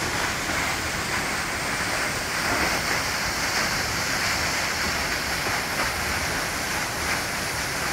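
Waterfall pouring over a rocky cliff edge: a steady rush of falling water.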